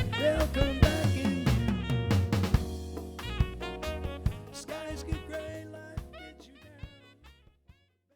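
Smooth jazz band playing the closing bars of a song, with drum kit and pitched instrumental lines, gradually fading out to silence near the end.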